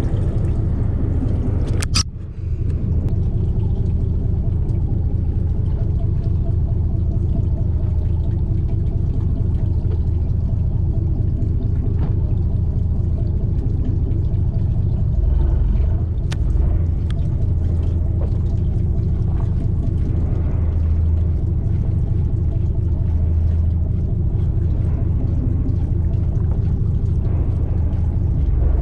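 Fishing boat's engine running steadily, a low rumble that holds throughout, with a brief drop about two seconds in.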